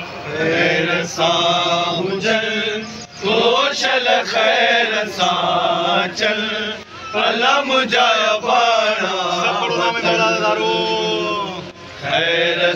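A group of men chanting a Muharram noha refrain in unison, in long sung phrases broken by short pauses about every four seconds.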